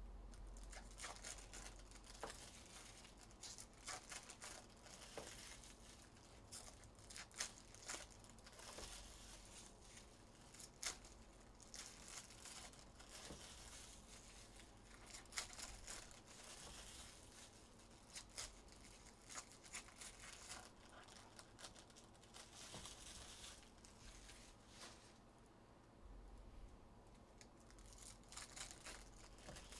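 Faint, scattered crinkling and tearing of trading-card pack wrappers, with small clicks of cards being handled, over a low steady hum.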